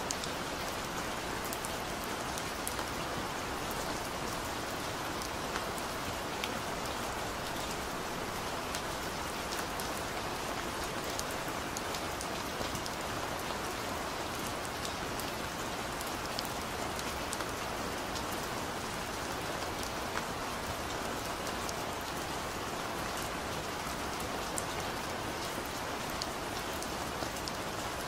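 Steady rain falling, an even hiss with many small, sharp drop ticks scattered through it and no thunder.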